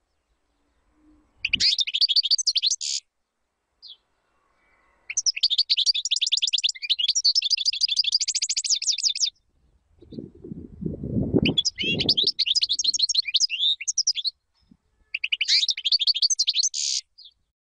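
European goldfinch singing: rapid twittering, trilling phrases in four bursts of a few seconds each, every one cutting off abruptly into silence. A low noise sounds under the song around the middle.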